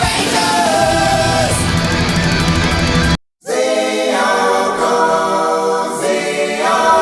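Background song with sung vocals, cutting out to silence for a moment about three seconds in, then going on with the voices and without the bass and drums, which come back near the end.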